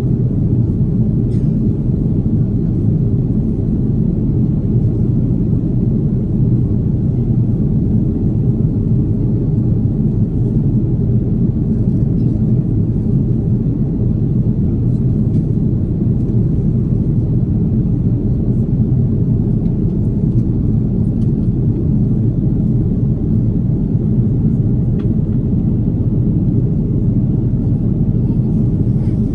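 Steady low rumble of an Airbus A330neo cabin in flight, from its Rolls-Royce Trent 7000 engines and the airflow over the fuselage, heard through the cabin window.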